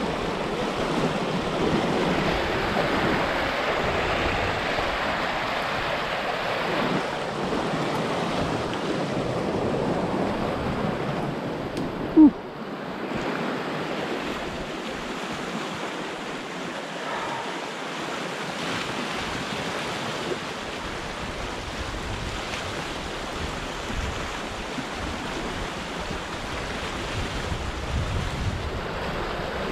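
Steady rushing of a river in full flood, mixed with wind noise on the microphone. About twelve seconds in there is one brief, sharp, loud sound.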